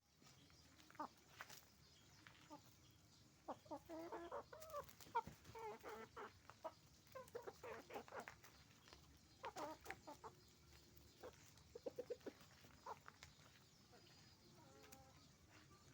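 Chickens on a farm clucking in many short, overlapping calls, busiest in the middle stretch and thinning out toward the end.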